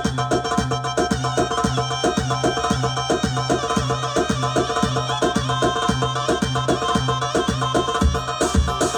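Arabic-style dance music with a steady, driving percussion beat and a repeating low note.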